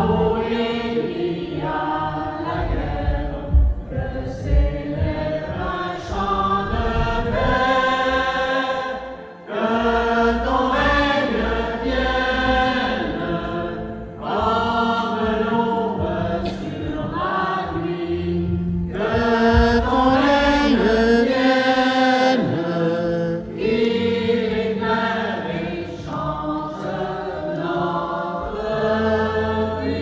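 Group of voices singing a hymn over sustained instrumental chords, with short breaks between phrases: the entrance hymn of a Catholic Mass.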